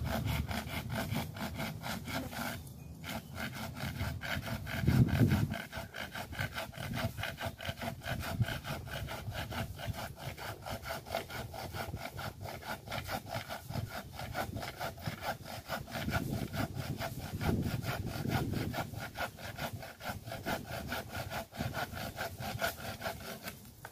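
Hand saw cutting through a dead tree branch in steady, rhythmic back-and-forth strokes, with a short pause about three seconds in. A brief low rumble comes about five seconds in.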